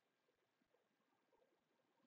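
Near silence: a gap in the voice-over with nothing heard.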